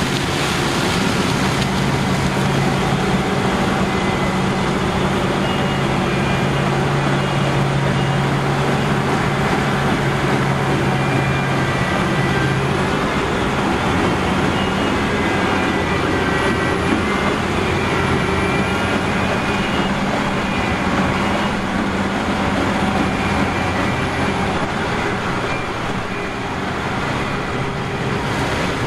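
Heavy harvest machinery running steadily: diesel engines drone under a noisy mechanical din with faint whines that waver in pitch. One low engine note drops away partway through.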